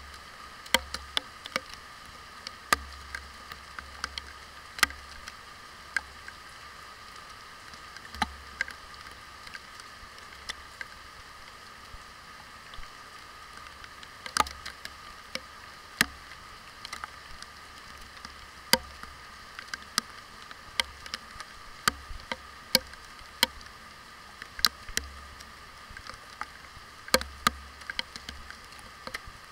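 Heavy rain heard from inside an action camera's waterproof housing: a steady muffled hiss, with irregular sharp taps as drops strike the case.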